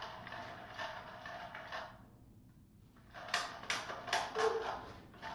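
Faint scattered ticks, then a quick run of sharp clicks and scuffs starting about three seconds in.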